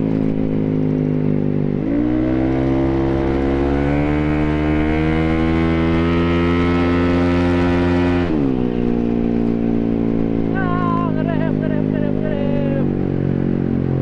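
Bored-up Yamaha X-Ride scooter engine running through a Tekamoto Trioval aftermarket silencer under way. The revs climb quickly about two seconds in as the throttle opens, hold and creep higher through a steady pull, then drop sharply about eight seconds in as the throttle is closed, and the engine winds down.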